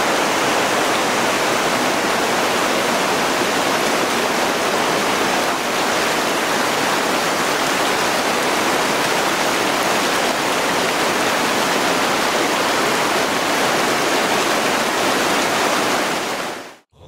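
Steady, loud rush of flowing water from a mountain stream or waterfall, cutting off abruptly near the end.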